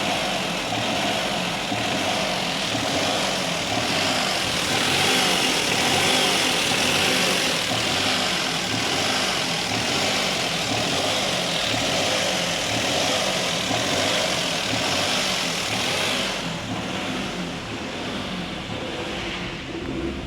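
Maruti car engine running with a misfire (missing). About four seconds before the end it settles to a lower, quieter run.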